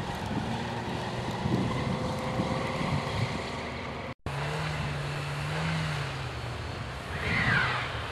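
Car engine running, with wind buffeting the microphone. The sound drops out for a moment about four seconds in; after that a steady low engine hum is plainer.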